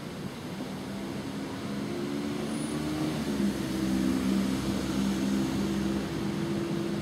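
A motor engine hum with a few steady low tones over background noise. It swells about two seconds in and eases off slightly near the end, like a vehicle passing close by.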